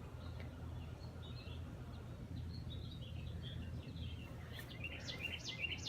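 Faint birds chirping in the background, a run of short high chirps that gets busier near the end, over a steady low rumble.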